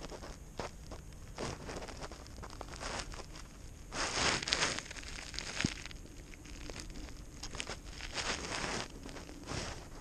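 Handling noise: clothing fabric rustling and rubbing against the camera's microphone in uneven scrapes, loudest about four seconds in and again about eight seconds in.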